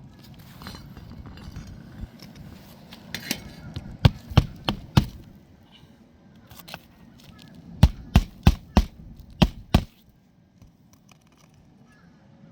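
Hammer driving roofing nails to fasten a replacement asphalt shingle: four quick strikes about four seconds in, then six more a few seconds later.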